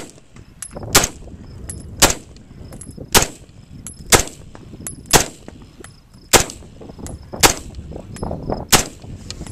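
Rock River Arms LAR-15 semi-automatic AR-15 rifle firing nine single shots at a slow, steady pace of about one a second.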